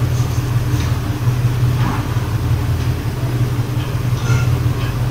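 Steady low hum, with a few faint clicks and rustles as a DSLR camera is turned over in the hands.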